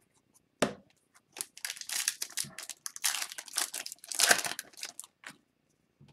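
Plastic wrapper of a 2021-22 Upper Deck Series 2 hockey card pack being torn open and crinkled by hand. A sharp click about half a second in, then a few seconds of crinkling and tearing, loudest near the end.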